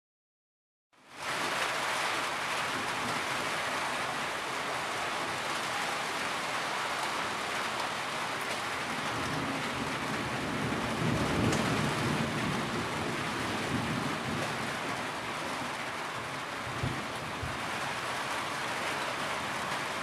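Steady rain that starts abruptly about a second in, with a low rumble of thunder swelling about halfway through.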